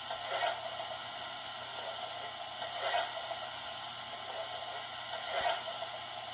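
Onboard sound system of an O-scale MTH LMS Duchess class steam locomotive model playing standing steam sounds: a steady hiss with a louder puff of steam about every two and a half seconds, three times.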